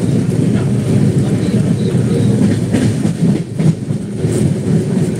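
Moving passenger train heard from inside the coach: a steady low rumble of wheels running on the rails, with a few sharp clacks about three seconds in.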